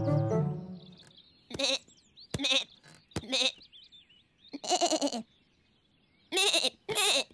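A cartoon character's short bleating calls: three quick bleats, a longer one a little after the middle, then two more near the end. A music phrase dies away in the first second.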